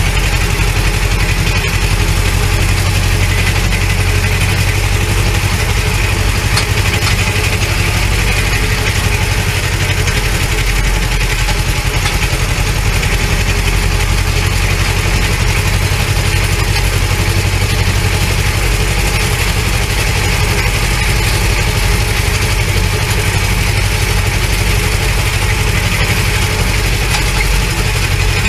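Ursus C-330 tractor's two-cylinder diesel engine running at a steady speed while driving, heard from inside the cab.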